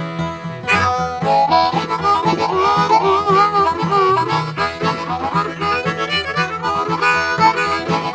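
Harmonica playing an instrumental break, with bent, wavering notes in the middle, over a steady guitar accompaniment.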